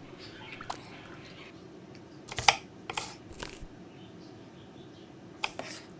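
Small objects being handled: a few short clicks and scuffs, a cluster about two and a half to three and a half seconds in and another near the end.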